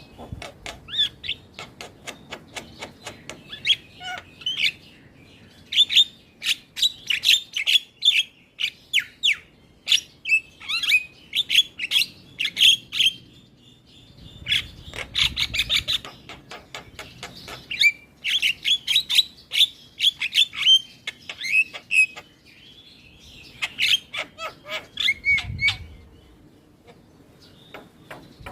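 Javan myna singing hard in repeated bouts of rapid chirps, whistles and harsh notes, each bout a few seconds long with short pauses between. A couple of low thumps sound under the song about halfway through and near the end.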